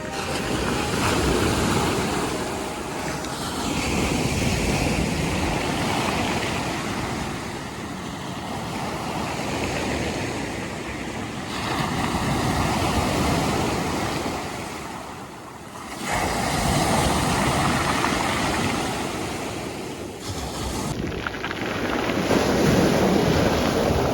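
Rough, stormy ocean surf: waves breaking and washing up the shore, swelling and easing every few seconds, with wind buffeting the microphone.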